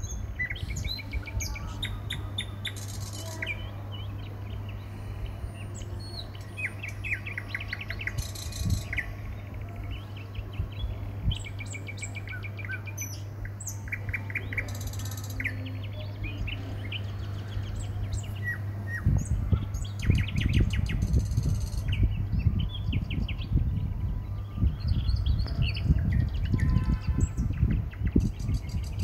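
Several birds chirping and trilling in short, scattered calls, over a steady low hum. From about two-thirds of the way through, a low, uneven rumble joins in.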